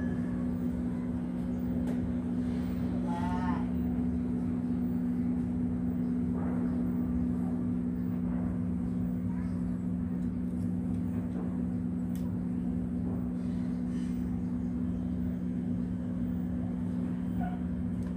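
Steady low hum made of two constant tones, from a running motor or electrical appliance. A brief warbling sound comes over it about three seconds in.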